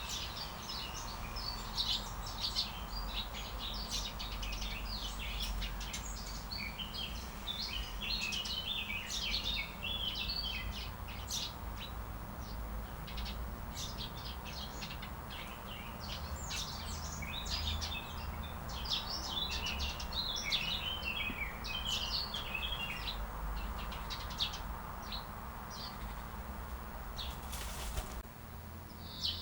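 Many small songbirds chirping and twittering in quick, overlapping high calls, over a steady low background hum.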